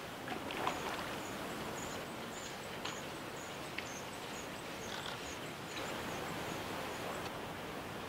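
Steady hiss of a small river's running water. Over it come faint, very high, thin chirps, about two to three a second, with a few soft clicks.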